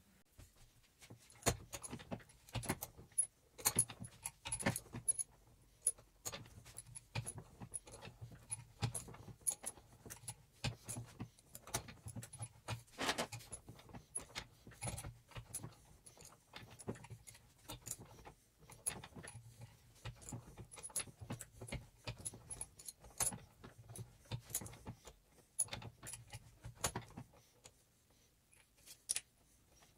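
Steel motorcycle roller chain clinking and rattling as it is handled and fed link by link through a bench vise, in many small irregular metallic clicks and jingles.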